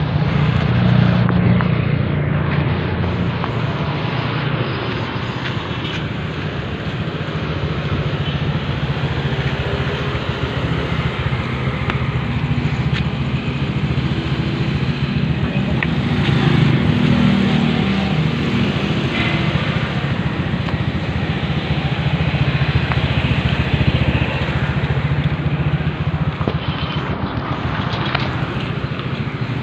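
A motor vehicle engine running steadily with road noise, the low rumble swelling and easing a little.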